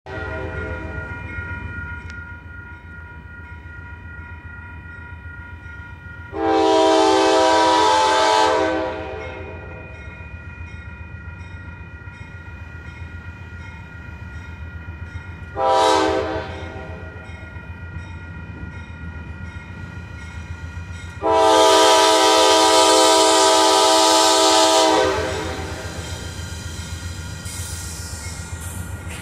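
Norfolk Southern diesel freight locomotive's air horn blowing the grade-crossing signal: a long blast, a short blast, then another long blast, over the low rumble of the approaching train and the steady ringing of the crossing signal.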